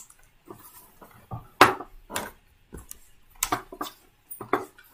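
A few short taps and clicks at irregular intervals, with faint quiet between them.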